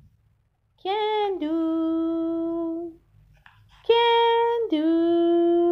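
A voice singing two long held notes, each opening with a short higher note before dropping to a steady lower pitch, with a gap of about a second between them.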